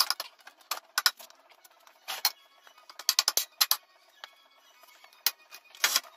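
Steel parts being handled and knocked together: about a dozen irregular sharp metallic clinks and knocks, the loudest near the end.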